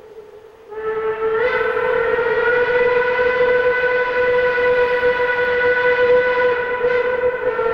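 Steam locomotive whistle of the deep 'hooter' type, blowing one long held blast. It starts a little under a second in, rises slightly in pitch as it opens fully, then holds steady. The fading end of the previous blast is heard at the very start.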